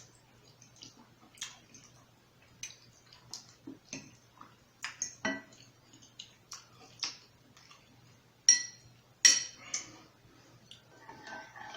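Close-up eating sounds while tasting mac and cheese: small wet mouth clicks and chewing, with a utensil clinking on the dish. Two sharper, louder clinks come about two thirds of the way through.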